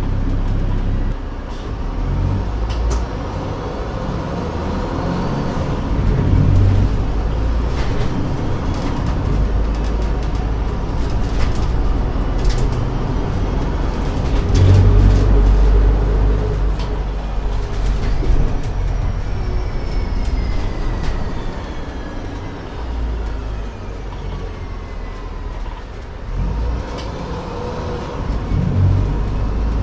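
Alexander Dennis Enviro 500 double-decker bus under way, heard from inside the bus. Its Mercedes-Benz OM936 six-cylinder diesel with Voith automatic gearbox runs with a rumble that swells loudest around the middle. Falling whines follow in the second half, with light clicks and rattles throughout.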